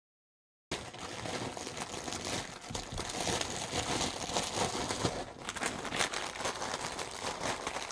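Packaging crinkling and rustling as it is handled. It starts abruptly just under a second in and runs on with many small crackles.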